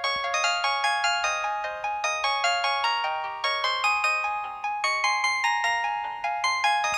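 A preloaded ringtone on a ZTE F102 phone plays through the phone's small speaker: a quick bell-like melody of short, fast-fading notes with no bass. There is a click just after the start and again near the end, where the tune changes to another ringtone.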